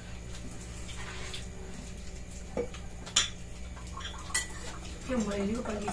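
Spoons and forks clinking and scraping on dinner plates as people eat, a few sharp clinks, the sharpest about three seconds in, over a steady low hum.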